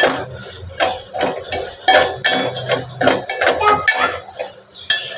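A spoon stirring food in a metal pot, scraping and clinking against the pot's sides in quick, irregular strokes.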